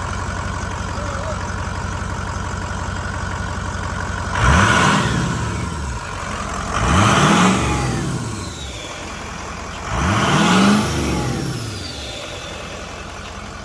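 Ford 6.0L Powerstroke V8 turbo-diesel, fitted with a new cold air intake, idling and revved three times in quick blips, each rev rising and falling back to idle with turbo whistle audible as it winds down.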